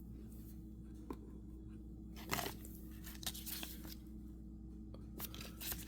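Faint rustling and a few brief clicks of small plastic toy packaging and a figure being handled, over a low steady hum.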